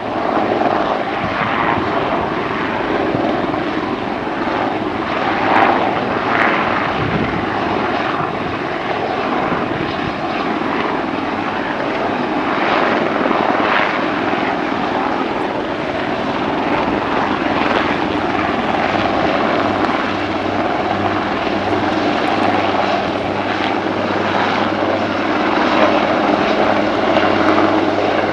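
AH-1Z Viper attack helicopter flying low and coming in to hover near the ground: steady rotor and turbine noise throughout, with a low hum growing stronger in the second half as it closes in.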